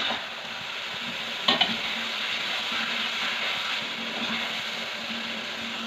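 Sweet potato chunks sizzling steadily in a wok while being stirred, with a spatula knocking against the wok at the start and twice about one and a half seconds in.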